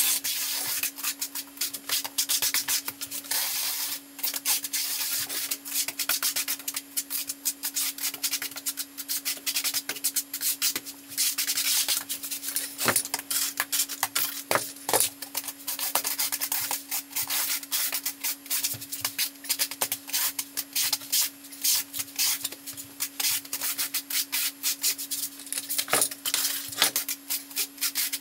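Notched trowel scraping and spreading thinset mortar across a plywood subfloor in rapid, continuous strokes, with a steady low hum underneath.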